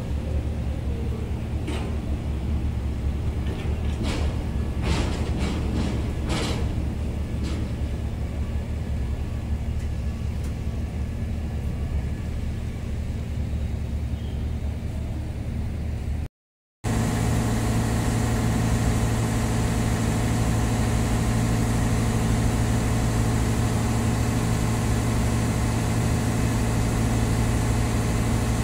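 Steady low engine drone with several steady deep tones, a few sharp clicks in the first several seconds, and a brief dropout to silence past the middle, after which the drone is a little louder.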